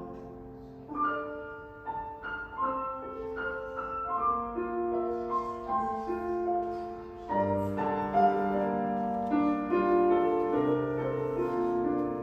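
Piano playing a solo interlude within a choral piece: a melody in struck notes over held chords, with a fuller passage starting about seven seconds in.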